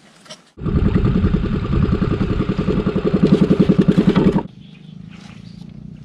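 Small boat engine running loud with a fast pulsing beat; it starts abruptly about half a second in and cuts off about four and a half seconds in, leaving a fainter steady hum.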